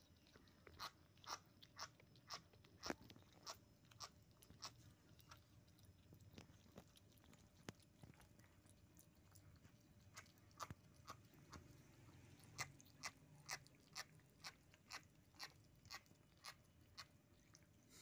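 Kittens chewing sticky steamed shark meat: a run of small wet smacking clicks, about two a second, thinning out partway through and then picking up again.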